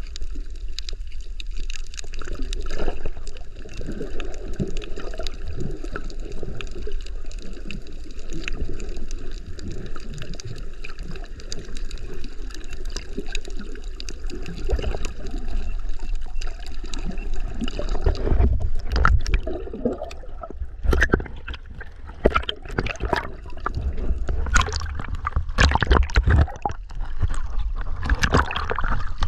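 Water gurgling and washing around a snorkeler's camera, muffled and steady. About eighteen seconds in it turns choppier, with loud irregular sloshing and knocks.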